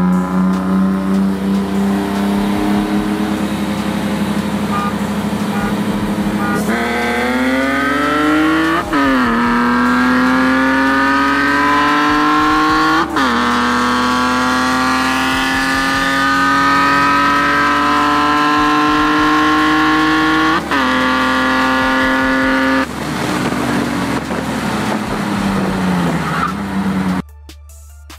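BMW E36 M3's S50B32 3.2-litre straight-six with a Supersprint exhaust, heard from inside the cabin: cruising steadily, then about seven seconds in going to full throttle and pulling hard through the gears, its pitch climbing with three sharp drops at the upshifts. Near the end the throttle is lifted and the engine winds down, then music comes in briefly.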